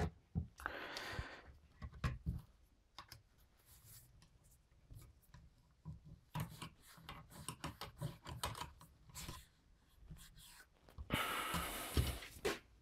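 Quiet handling noises of revolver cleaning gear: scattered light clicks and small rubbing sounds from a cleaning rod and oiled patch, with a longer scraping rub near the end.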